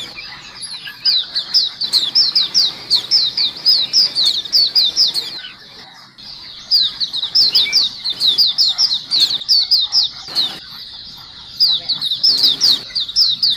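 A caged flock of white-eyes (pleci) chirping together: a dense, rapid chatter of short, high, downward-slurred notes. The chatter thins briefly about halfway through and again near the end.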